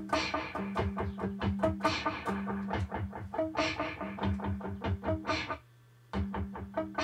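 Electric guitar music built from loops: quick, evenly repeated picked notes over held low notes. The whole sound cuts out for about half a second near the end, then starts again.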